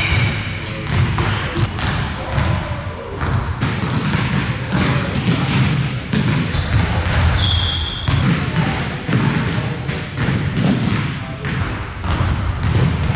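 Several basketballs bouncing on a hardwood gym floor, with repeated dribbling thuds overlapping throughout. Short high sneaker squeaks come through near the middle.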